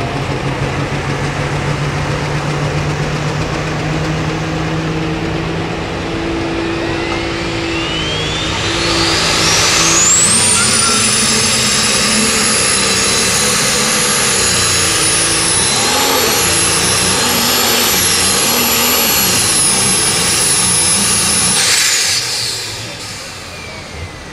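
Light Super Stock pulling tractor's turbocharged engine running at the line, then opened up to full throttle for the pull. A turbo whine rises over about three seconds to a very high pitch and holds for about eleven seconds. Near the end it falls away as the throttle is cut and the engine sound drops.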